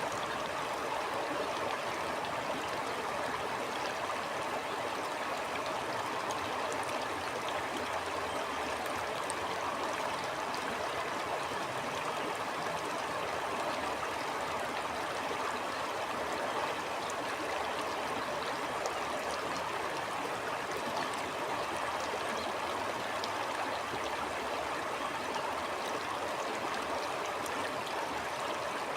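A stream flowing steadily: a continuous rush of running water with a light gurgle and faint tiny ticks of droplets.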